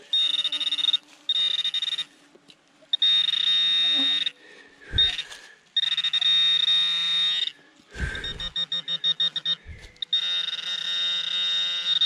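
Handheld metal-detector pinpointer sounding in a series of loud, high-pitched buzzing bursts as it is probed into the soil, breaking into rapid beeps a little after halfway: the alert of a metal target close by in the hole. A few dull thumps of the tool against the earth come between the bursts.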